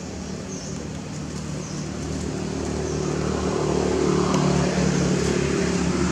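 A motor vehicle engine running at a steady pitch, growing louder through the first few seconds and then holding. Two faint short high chirps sound in the first two seconds.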